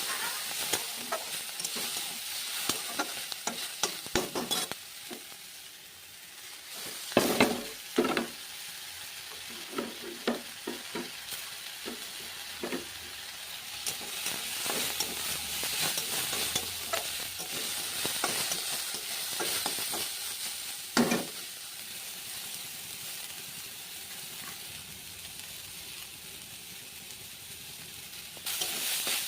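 Food sizzling as it fries in a pan while being stirred, with a spatula scraping and clicking against the pan. There are louder knocks about seven to eight seconds in and again about two-thirds of the way through.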